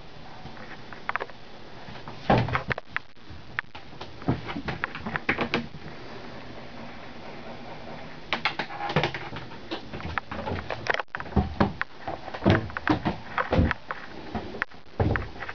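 Scattered knocks and thumps of someone moving about inside a sailboat's wooden cabin, over a steady background hiss.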